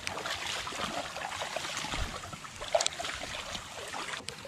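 Rubber boots wading through shallow water, splashing and sloshing with each step in an irregular run, with one louder splash a little under three seconds in.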